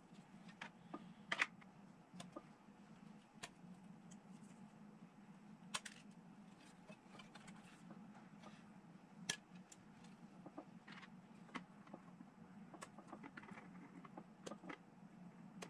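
Sprue cutters snipping miniature parts off plastic sprues, and the plastic frames clicking as they are handled: scattered sharp clicks, the loudest about a second and a half in, over a faint steady hum.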